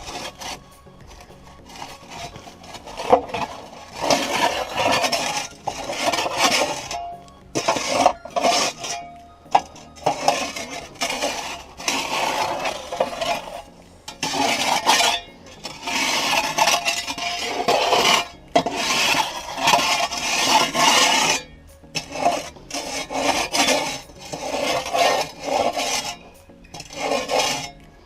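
Repeated scraping strokes of a hand tool digging packed dirt and mud out of a Kobelco SK150 excavator's track and undercarriage, each stroke a second or two long with short pauses between.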